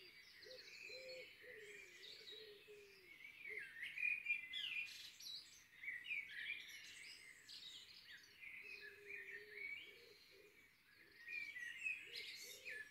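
Faint birdsong: many small birds chirping and twittering in short, quick phrases throughout, with a lower wavering call beneath.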